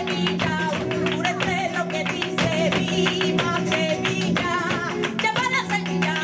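Live sevillanas played on acoustic flamenco guitar, with a flamenco singer's wavering, ornamented vocal line and many sharp percussive clicks throughout.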